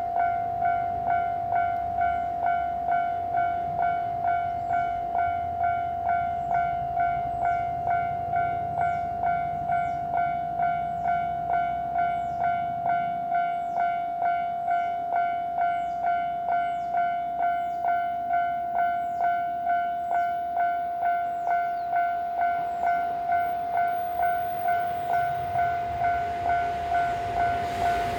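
Japanese level-crossing warning bell ringing, an electronic clanging tone struck in an even rhythm of just under two strikes a second, the signal that a train is approaching.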